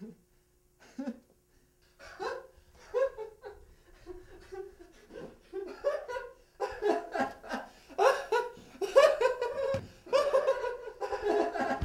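A man laughing in short bursts, starting faint about a second in and growing louder and more continuous toward the end.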